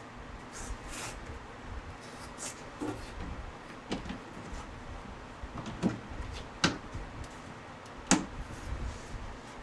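Plastic interior trim panel of a 2009 Toyota Corolla being fitted back into the footwell: rustling and handling, with several sharp clicks and knocks as it is pushed into place, the loudest near the end.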